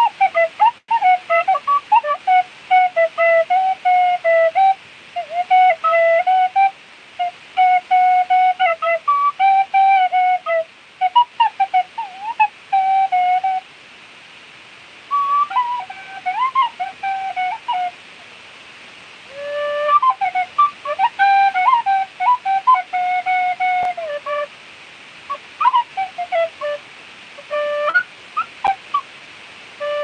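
Clarke Sweettone tin whistle playing an improvised melody in phrases of short notes with quick flicks between pitches, breaking off briefly about fourteen and eighteen seconds in.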